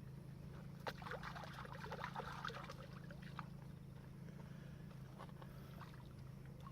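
Water splashing and dripping for about two and a half seconds, starting about a second in, with a few sharp clicks, over a steady low hum.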